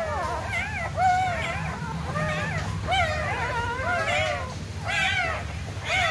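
Young puppies whimpering and crying in high, arching squeals, several calls a second and sometimes overlapping.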